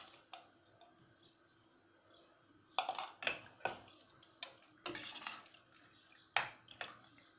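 Metal ladle stirring a watery tomato pea stew in a stainless steel pot, clinking and knocking against the pot's side several times from about three seconds in, with the slosh of the liquid between.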